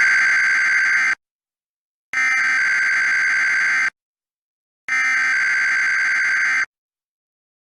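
Emergency Alert System SAME header: three identical bursts of buzzy digital data tones, each just under two seconds long with about a second of silence between them, the coded header that opens a Required Weekly Test.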